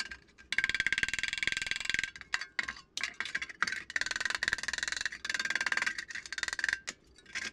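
Small hammer tapping fast on a sheet-metal flange, each blow ringing metallically. The taps come in quick runs of a second or so, with short pauses between them.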